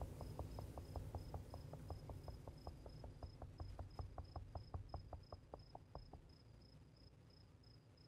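Crickets chirping steadily and faintly, over a fast, even run of soft clicks, about five a second, that fades out about six seconds in.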